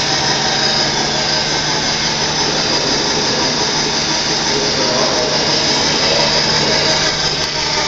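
Electric motor of a hospital bed running steadily under joystick control as it drives the hinged head section upward.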